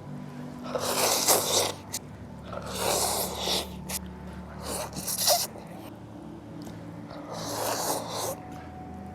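A person slurping instant noodles: four noisy slurps, each about a second long, about two seconds apart.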